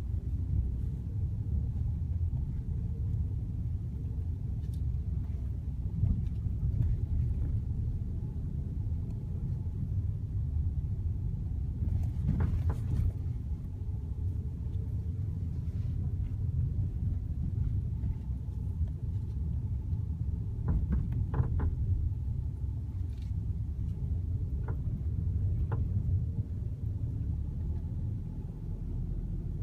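Ford Fiesta running with a steady low rumble, overlaid by a few sharp clicks, most of them grouped about two-thirds of the way through; this is the abnormal noise being recorded in the car.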